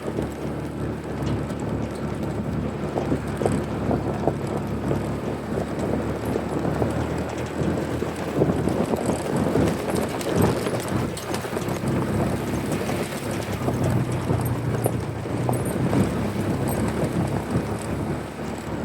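An engine running steadily, with rattling and knocking over it and some wind on the microphone.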